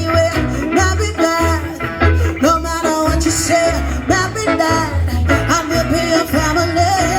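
Live band playing a reggae-style song: a pulsing bass line under guitar and a melody line.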